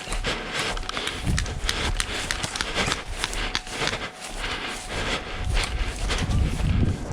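Footsteps and the scuffing and rustling of clothing and gear, with many irregular short scrapes and clicks.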